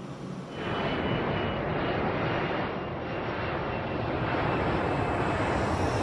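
Jet airliner engines at takeoff thrust during the takeoff roll: a loud, steady rush of engine noise with a faint high whine, coming in sharply about half a second in.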